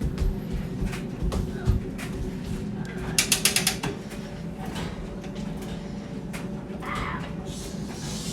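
Metal lighting stand being handled and adjusted: scattered knocks, then a quick run of about seven sharp mechanical clicks about three seconds in.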